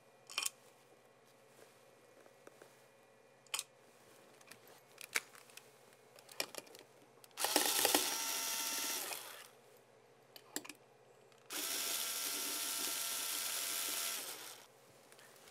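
Electric screwdriver driving two screws fitted with sealing washers into a camera's back cover: a few light clicks first, then two runs of the motor of about two and three seconds, its pitch dropping as each run ends.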